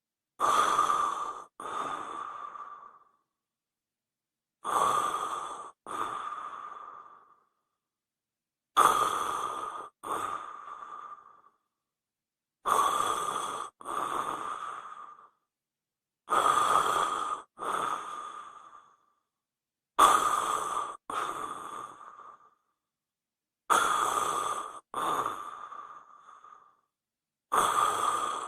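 Person snoring, a snoring sound effect: each snore is a loud breath followed at once by a second, fading breath. The same pair repeats about every four seconds, with silence between.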